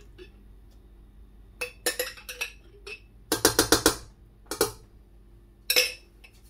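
A spoon knocking against the rim of a stainless steel pot to shake off mayonnaise: a few separate knocks, then a quick run of about six, then two more single knocks.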